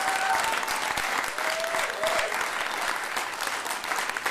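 Audience applauding, with two long whoops over it, one at the start and one about halfway through.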